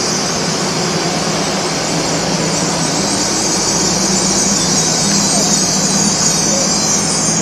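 Great Western Railway passenger multiple-unit train moving slowly alongside the platform: a steady, loud hiss with a low hum underneath.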